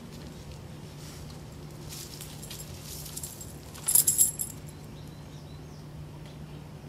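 A dog's metal collar tags jingle briefly about four seconds in as it nuzzles a toy into the dirt with its nose. A faint scratchy rustle of dirt comes just before the jingle.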